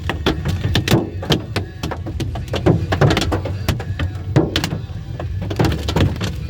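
Golf-ball-sized hailstones striking a car's roof and windshield, heard from inside the cabin: a dense, irregular run of hard knocks, several a second, over a steady low rumble.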